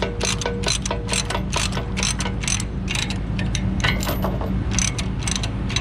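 Ratchet chain binder being cranked to tighten a load-securing chain, its pawl clicking in quick runs of about three or four clicks a second, with a steady low hum underneath.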